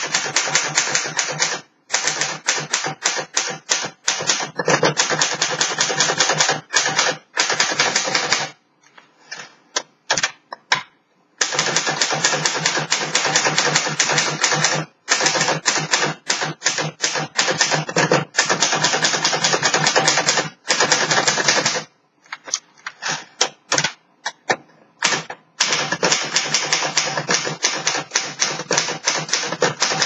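1955 Underwood Jewel manual typewriter being typed on in fast, continuous runs of key and typebar strikes. Twice the typing thins for a few seconds to scattered single keystrokes before the runs resume.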